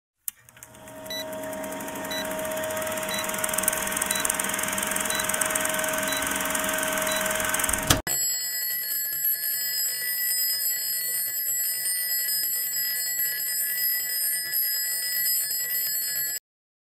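Intro sound effects: an old film countdown with projector-style hiss and crackle and a faint tick every second. After a sharp click about halfway, an alarm clock bell rings steadily and cuts off suddenly near the end.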